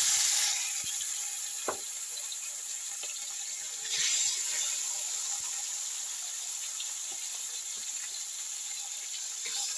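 Fish frying in hot oil in a wok: a steady sizzle that swells briefly about four seconds in.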